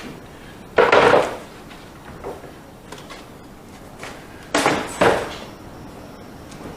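Pieces of salvaged wooden boat joinery being handled and set down, knocking against each other: one longer knock about a second in, then two quick knocks about a second before the end.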